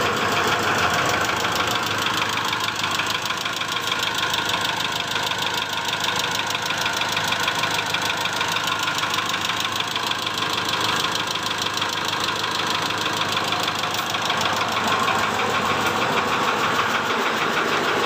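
Mitsubishi Strada Triton GLS engine idling with a rapid, steady tak-tak-tak knock and a rattling chatter from the valves. The mechanic hears it as a rough-running engine with its valve clearances out of adjustment.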